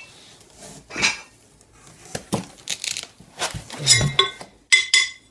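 Aluminium extrusion beams and flat aluminium frame plates of a CNC engraving machine clinking and knocking against each other as they are handled. Several sharp metallic clinks ring briefly, the last two coming close together near the end.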